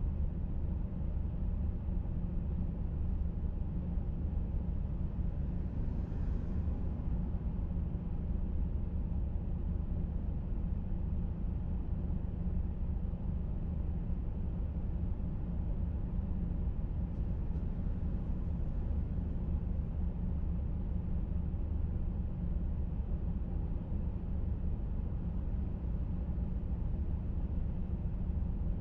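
Steady low rumble of a car on the move, engine and road noise running evenly without a break.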